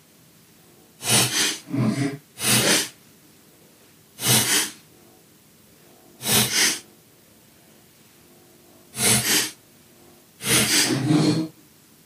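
Blue spring-loaded desoldering pump (solder sucker) being cocked and fired about seven times, each shot a short, loud rush of air, irregularly spaced. It is sucking molten solder out of the switch pads on a mouse circuit board to clear them.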